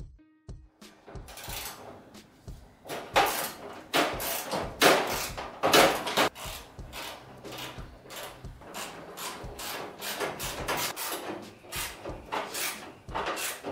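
Hand tools working bolts on a stainless steel grill-table end plate: a run of short, sharp clicking and scraping strokes, a few louder ones in the first half, then quicker and more even strokes at about four a second.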